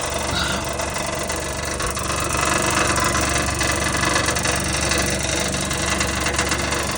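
2017 Nissan Versa's 1.6-litre four-cylinder engine idling in drive, with a steady metallic rattle from under the car that grows a little louder about two and a half seconds in. The rattle comes from a loose underbody part whose bolt has fallen out of its worn, enlarged hole.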